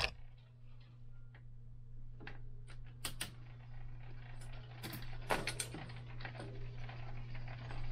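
Scattered light clicks and knocks of bicycle parts and hand tools being handled during bike assembly, over a steady low hum.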